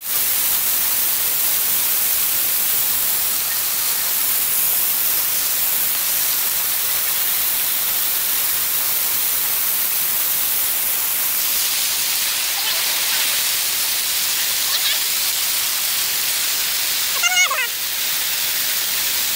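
Large fountain's water cannons and jets spraying and splashing into the basin: a loud, steady rush of falling water. A brief high voice cries out near the end.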